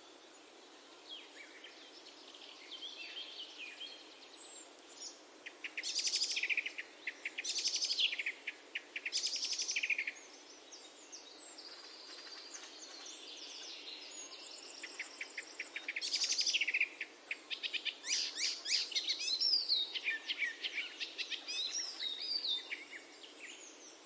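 Songbirds singing: a series of quick, high, trilled phrases about a second long each, clustered in two spells, over a faint steady outdoor hiss.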